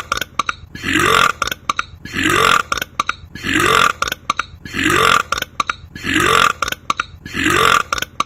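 The same belch repeated eight times, evenly about once a second, each one rising a little in pitch, with short clicks between them.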